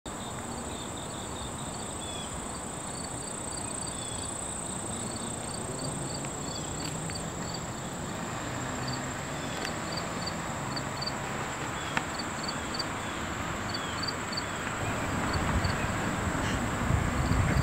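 Insects droning and chirping: a steady high drone with short high chirps in quick groups of three or four, repeating about once a second. A low rumble builds near the end.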